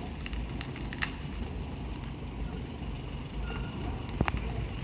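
Low rumble of wind buffeting the microphone, with scattered light clicks and a sharper tick about four seconds in.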